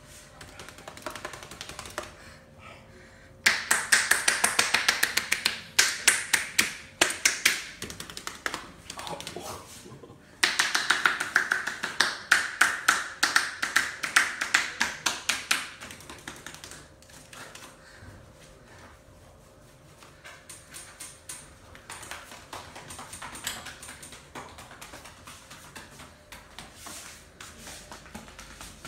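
A masseur's hands striking the body in fast percussion massage (tapotement), a quick rhythm of slaps and taps. It comes in two loud runs of several seconds each, with softer tapping before, between and after them.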